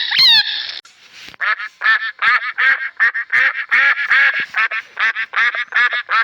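A bird calling. A few calls come at the very start, then after a short gap comes a fast run of short, harsh calls at about three a second.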